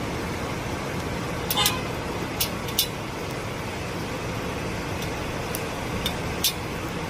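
Steady rushing noise of a swollen, muddy river in flood, with a brief toot about one and a half seconds in and a few sharp ticks scattered on top.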